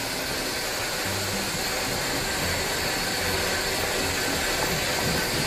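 Countertop blender motor running steadily, puréeing hot tomato soup, with a thin high whine over the whirring.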